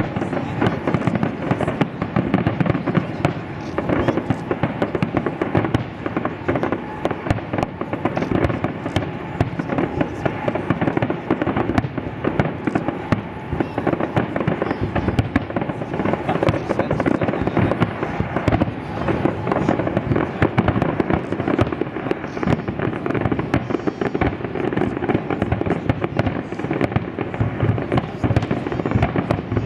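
Fireworks display: a continuous barrage of aerial shells bursting and crackling, the bangs overlapping so densely that they run together without a break.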